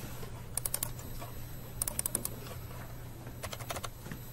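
Typing on a laptop keyboard: three short runs of quick key clicks, spaced a little over a second apart.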